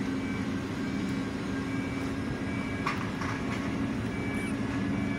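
SM42 shunting diesel locomotive running with a steady hum while it moves passenger coaches along the platform, with a single light click about three seconds in.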